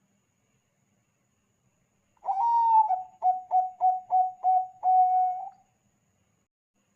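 A Bangkok zebra dove (perkutut bangkok) gives one cooing call starting about two seconds in. It has a longer opening coo, a quick run of five short coos and a drawn-out final coo, about three seconds in all.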